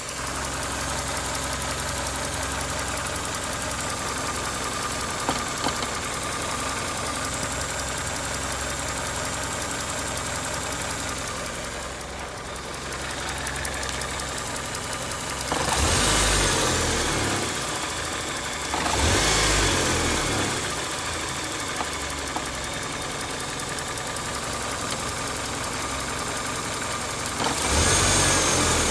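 Toyota 4A-FE 1.6-litre inline-four engine idling with a rattling knock, revved briefly three times, the pitch rising and falling each time. The owner does not know the cause of the knock and is asking for a diagnosis.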